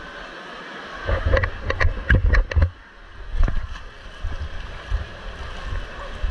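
Water rushing down a plastic water slide, with a low rumble underneath. About a second in comes a quick run of roughly six sharp knocks, the loudest sounds here.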